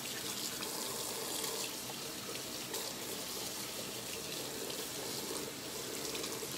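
Kitchen faucet running steadily into the sink while dishes are rinsed.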